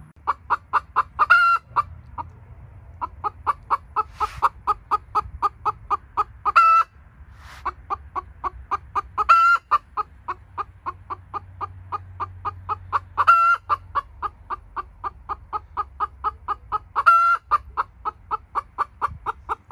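Silkie chicken giving a long run of quick clucks, about four a second, broken every few seconds by a louder drawn-out squawk, five times in all.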